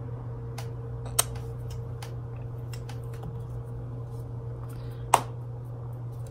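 Small plastic makeup cases and a pencil being handled: a run of light clicks and taps, with two sharp snaps, one about a second in and a louder one about five seconds in. Under them runs a steady low hum.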